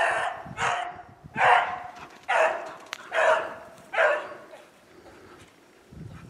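Beagles baying while running a rabbit in snow: about six full-voiced bays in quick succession over the first four seconds, each falling slightly in pitch, then they die away.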